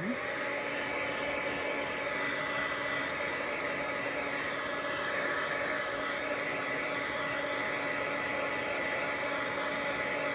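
Craft heat tool running steadily, blowing with a rushing sound and a faint even motor whine, drying freshly sprayed ink on watercolour paper.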